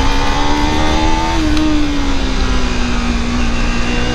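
Motorcycle engine running under way: its note climbs a little, drops about a second and a half in, then holds steady. A heavy wind rumble sits underneath it.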